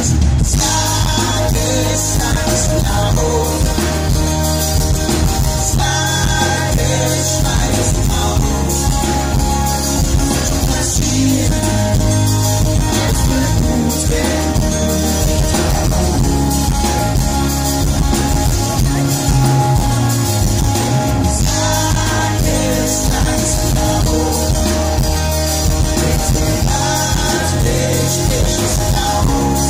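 Live pop-rock band playing: acoustic guitar, electric guitar, bass guitar and drums, with a man singing.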